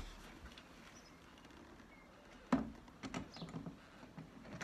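A sharp knock about halfway through, then a few lighter taps and clicks: a cordless drill and its bit being set against the metal friction hinge and UPVC frame of a top-hung window, without the drill running.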